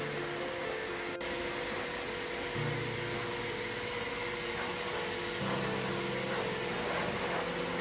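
Steady rushing air from a hose-type pet blow dryer running, with background music playing.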